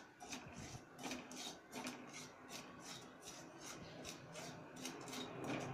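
Spatula stirring and scraping salt as it dry-roasts in a kadhai, a steady run of light scrapes at about three strokes a second.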